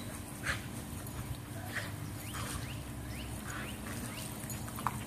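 German shorthaired pointers playing in the spray of a garden hose: a few short, high, rising squeaks and a couple of soft taps over a steady low hum.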